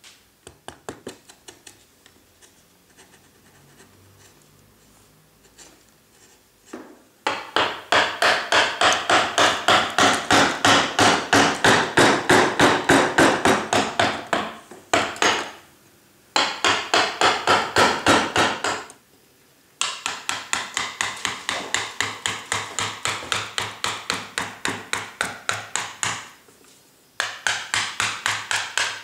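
Round wooden carver's mallet striking a gouge that cuts into limewood. A few light taps come first, then from about a quarter of the way in come quick, steady runs of blows, about three a second, broken by short pauses.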